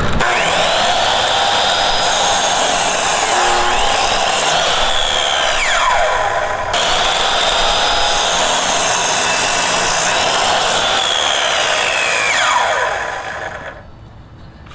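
Compact compound miter saw running and cutting through a 2x10 pine board, its motor whining as the blade spins. The whine falls as the blade winds down about midway and again near the end.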